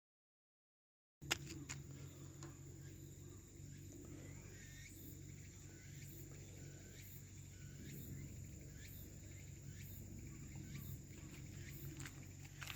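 Silence, then about a second in the sound cuts in with a click: insects chirping in short, evenly repeated high calls over a steady low hum.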